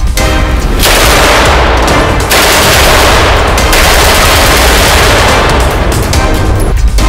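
STEN 9 mm submachine gun firing long bursts of rapid automatic fire.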